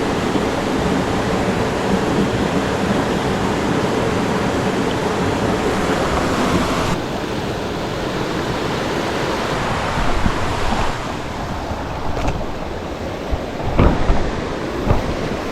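Creek water rushing steadily, a little duller about halfway through, with a few knocks near the end.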